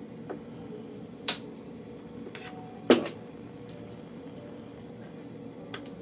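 A cat playing with a string toy in a plastic tub: light clicks and rattles as the toy and paws hit the plastic, with two sharper knocks, one about a second in and a louder one about three seconds in.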